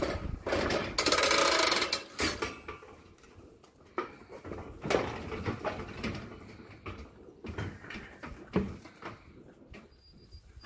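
Galvanised steel cattle crush gates and levers being worked, as one weighed animal is let out and the next comes onto the scale. A loud clanking rattle of steel starts about half a second in and lasts over a second, followed by scattered single knocks and clunks.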